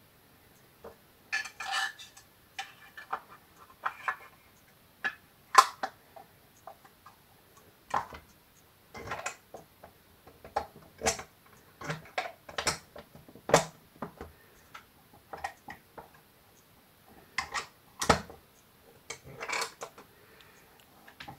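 Handling and assembly noises from a Cerberus Guinard SIR-24-FC fire-alarm sounder's casing and back box: irregular clicks, taps and knocks as the parts and wires are fitted together against a wooden table. The siren itself is not sounding.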